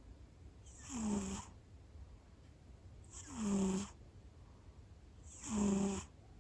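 Sleeping cat snoring: three snores about two seconds apart, each a low droning tone with a breathy hiss.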